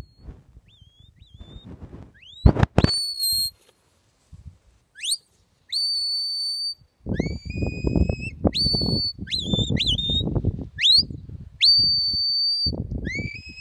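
Herding whistle commands to a working sheepdog: a series of high, piercing whistles, most sliding quickly up and then held level, one warbling. Two sharp knocks come a couple of seconds in, and bursts of low rumbling noise run under the whistles in the second half.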